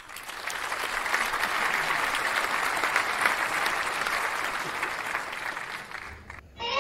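Applause, many hands clapping steadily, dying away about six seconds in.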